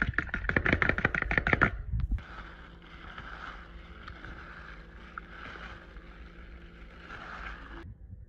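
Eggs being beaten quickly in a plastic bowl: rapid, loud strokes against the bowl for about the first two seconds. After that comes a softer wet sloshing as a gloved hand turns raw chicken pieces through the egg wash.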